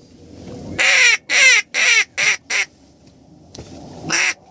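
Duck call blown close by: a run of five raspy quacks, each one shorter than the last and falling in pitch, then a single quack near the end. A faint wind rumble lies underneath.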